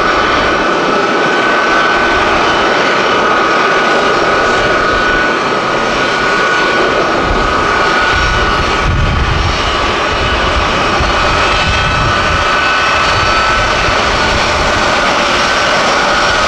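Boeing C-17 Globemaster III's four Pratt & Whitney F117 turbofans running at taxi power: a loud, steady jet roar with a high whine held on two close tones.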